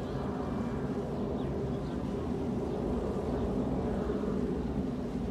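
Distant jet airliner climbing after takeoff: a steady, low engine rumble that holds level.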